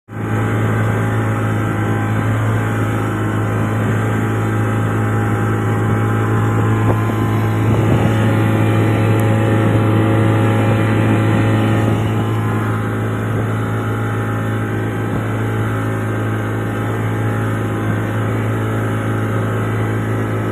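A boat's engine running steadily, a constant low drone with a steady pitch.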